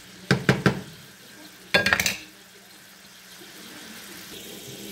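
Wooden spoon knocking and scraping in a nonstick pan of braised pork belly: three quick knocks in the first second, then a louder clatter with a brief ring about two seconds in, over a faint steady sizzle from the pan.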